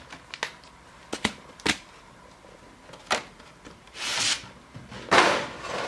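Pokémon trading-card packaging being handled by hand, foil booster packs among it: a few light clicks and taps, then two crinkling rustles about four and five seconds in, the second the loudest.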